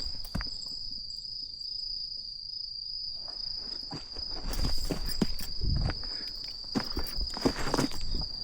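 Insects (crickets or similar) chirring in one steady high-pitched trill throughout, with footsteps and rustling, loudest in the second half.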